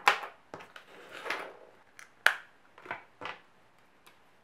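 Tabletop handling sounds: a few short clicks and rustles of paper and plastic, with one sharp click a little over two seconds in, as a marker is picked up.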